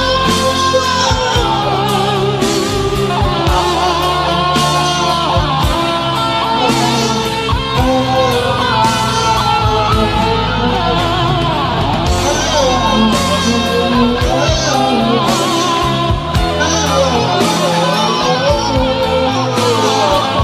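Instrumental break of a rock ballad backing track, with a lead electric guitar over a steady band beat.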